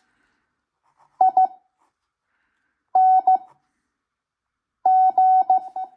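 Morse code practice audio at 5 words per minute: a steady mid-pitched beep keyed into dots and dashes. Three separate characters are sent with long gaps between them, about a second in, about three seconds in and near the end.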